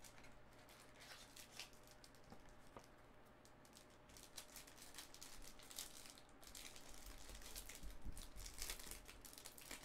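Foil wrapper of a trading-card pack crinkling and crackling as it is handled and pulled open, faint at first, then busier and louder in the second half.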